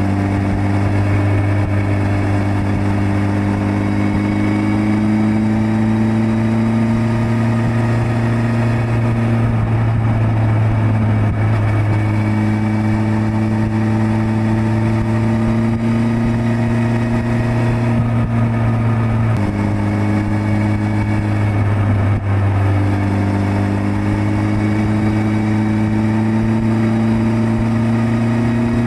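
Suzuki GSX1300R Hayabusa's inline-four engine running under way, heard from the bike. Its pitch climbs slowly with speed and drops back about four times as the throttle is eased or gears change.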